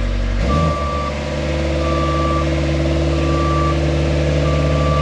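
Aerial boom lift moving, its motion alarm beeping four times at an even pace, about every second and a quarter, over the steady running of its engine and hydraulics; the drive note changes about half a second in as the lift starts to swing.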